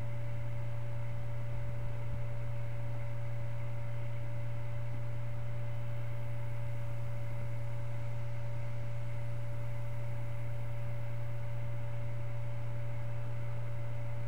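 Steady electrical hum, low and unchanging, with a thin steady whine above it.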